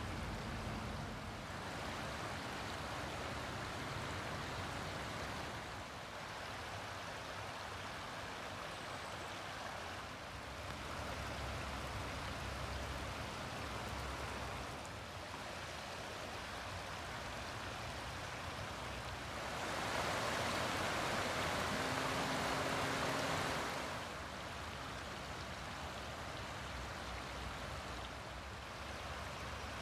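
Shallow forest creek running over gravel and stones: a steady rush of water that shifts in level every four to five seconds and is loudest about twenty seconds in.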